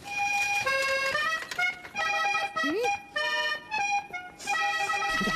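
Cartoon background music: a melody of short held notes that starts suddenly and breaks off briefly several times. A short rising squeak comes a little past the middle.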